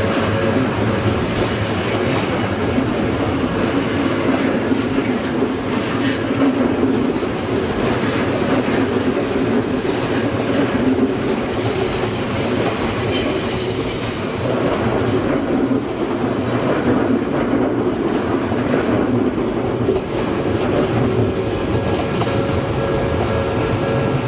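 Odakyu Line electric train passing over a level crossing, wheels clattering over the rail joints with a steady rumble. Steady warning tones of the crossing signal sound at the start and come back out near the end as the train noise eases.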